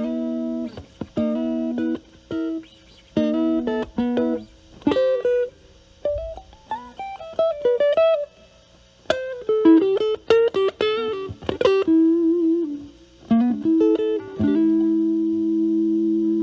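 Stratocaster electric guitar played through an Ibanez Super Metal mini (SM-9) distortion pedal set at drive 9, into a Marshall Valvestate amp's clean channel. Short choppy chord stabs give way to single-note lead lines with bends, and about 14 seconds in a held chord rings on.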